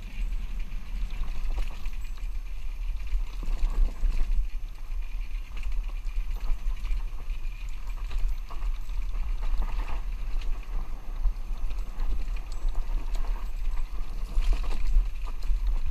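Dirt bike riding a rough dirt trail, heard through a helmet-mounted camera: a steady low rumble with scattered knocks and rattles from the bumps.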